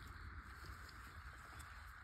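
Faint soft ticks and rubbing as a rubber tire is worked onto a small toy tractor wheel rim by gloved hands, over a steady background hum.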